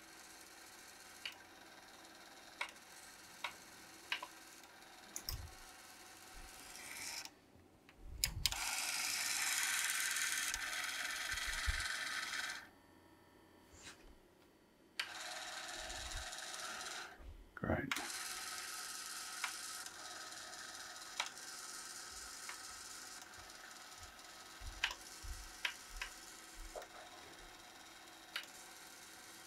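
Sony TC-K590 cassette deck's tape transport being tried out: scattered clicks from the mechanism, with two stretches of whirring motor noise in the middle and a short rising whine after the second, then quieter running with more clicks. The transport is not working properly; the owner wonders if the mechanism is mistimed.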